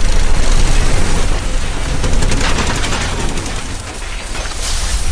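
Earthquake shaking a building: a loud, continuous clatter and crash of falling objects and rattling contents over a deep rumble.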